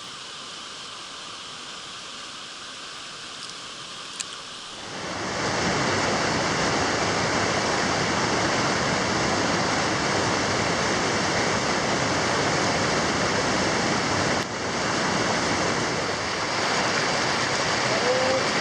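Mountain stream rushing over rocks, a steady noise of running water that jumps much louder about five seconds in, as if suddenly much closer to the current.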